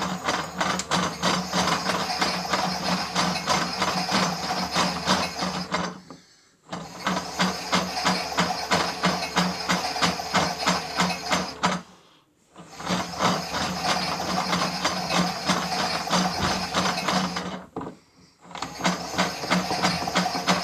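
Miele W1 toy washing machine running: a small motor hums steadily under a rapid mechanical clicking and rattling from its gears. It stops briefly about every six seconds, then starts again.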